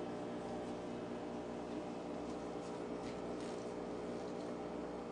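A steady low hum with a few faint soft rustles.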